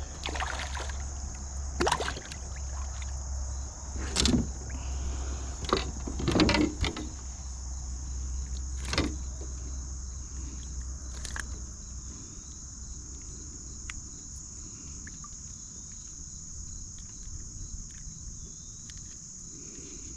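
Insects singing in a steady high drone, with a low steady hum underneath that stops about twelve seconds in. Half a dozen sharp knocks or splashes stand out over it, the loudest about four and six seconds in.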